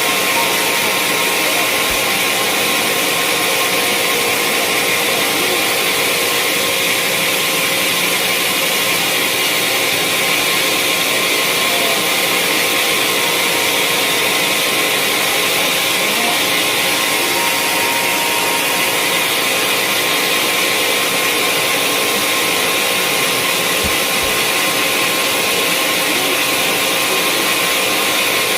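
Sawmill saw running steadily: a loud, even machine noise with a faint steady whine.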